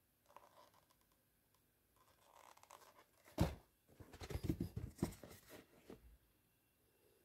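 Handling noise as sneakers are shifted about on a carpet: a sharp knock about three and a half seconds in, then a couple of seconds of rustling and scraping.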